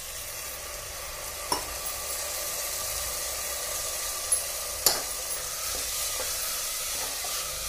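Steady sizzling hiss as water and sprouted moong meet the hot masala in an aluminium pressure cooker, with a metal ladle stirring and a few sharp metal knocks against the pot, the loudest about five seconds in.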